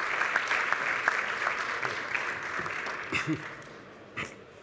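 Audience applauding, the clapping fading away over about three seconds.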